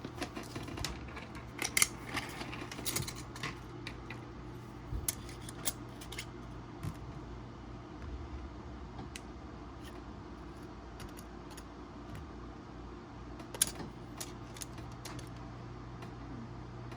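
Small parts of an SSD upgrade kit being handled: irregular light clicks and rattles of small screws, rubber bands and plastic packaging being picked up and set down, busiest in the first few seconds and again near the end, over a steady low hum.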